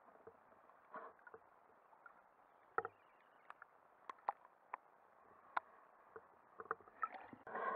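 Underwater sound picked up by a camera on a landing net held in the water: a muffled hiss with scattered sharp clicks and knocks as the net and camera housing are moved, and a louder rush of water near the end.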